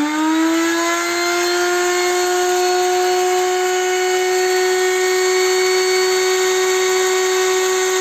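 Electric grinder's motor finishing its spin-up, then running at a steady high pitch as it grinds a grain and seed mix into feed.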